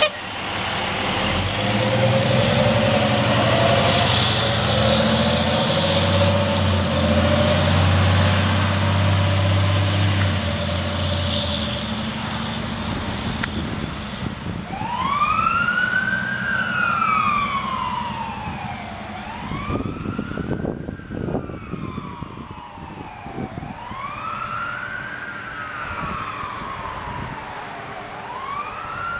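Fire engine's diesel engine pulling away and running under load, then from about halfway its siren wailing, rising and falling in slow cycles of about four seconds and fading as the truck moves off.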